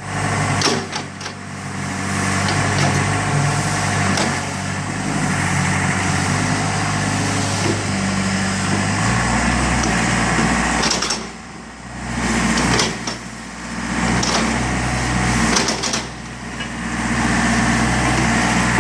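Excavator's diesel engine running steadily, its note shifting lower about halfway through as the engine speed changes. A few short knocks sound over it.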